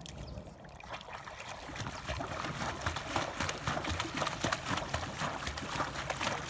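A Dogo Argentino puppy paddling in a river, its legs splashing the water in rapid, uneven slaps. The splashing starts about a second in and grows busier and louder.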